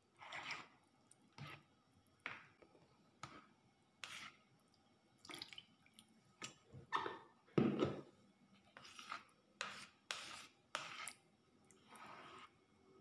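Metal spoon stirring es oyen (a milky, syrupy mix of fruit, sago pearls and basil seeds) in a plastic bowl: short wet swishes and sloshes, about one a second, the strongest a little past the middle.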